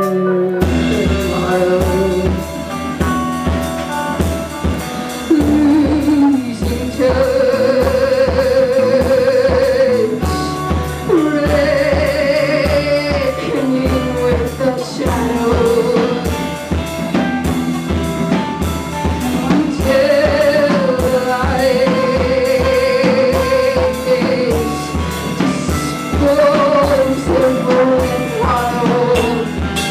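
Live band playing: a drum kit keeps a steady beat under long held melody notes with vibrato.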